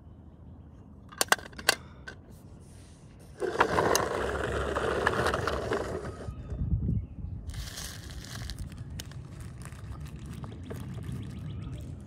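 Small plastic toy trash and toys being handled on concrete: a few light taps about a second in, then a noisy rush of toy trash being tipped out for about three seconds, followed by softer scraping.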